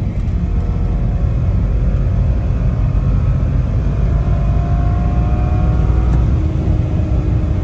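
Turbocharged 3.0-litre straight-six of a 2010 BMW 535i revving up under hard acceleration in sport mode, its engine note rising steadily over heavy road rumble inside the cabin. The car is running in its 'engine malfunction, reduced power' mode, which the owner suspects comes from a vacuum leak or the turbo wastegate.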